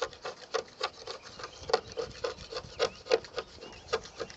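Razor blade scraper rasping over a car's painted wing in quick short strokes, about four a second, with light pressure, scraping off flakes of peeling clear coat.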